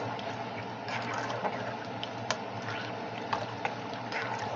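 Wire whisk stirring chicken gravy in a saucepan, its wires clicking and scraping against the pan in irregular taps, over a steady low hum.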